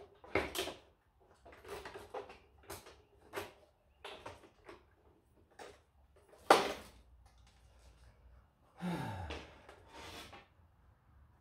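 Plastic and metal parts of a photocopier's document feeder being handled and pried during disassembly: irregular clicks, knocks and rattles. A louder clatter comes about six and a half seconds in, and a longer scrape that drops in pitch about nine seconds in.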